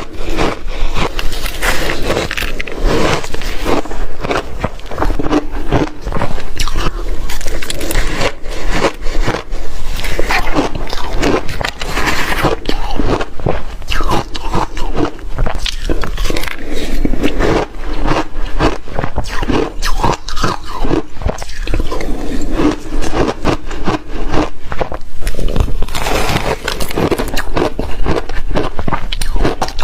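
Close-up crunching and chewing of re-shaved refrigerator ice: a dense, continuous run of crisp crunches.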